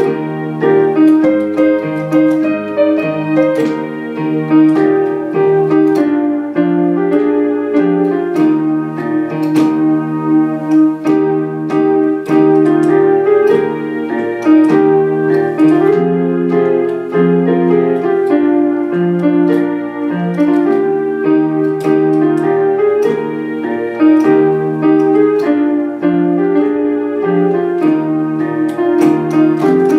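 Piano playing a gospel hymn tune in steady block chords with a moving bass line, with no voice.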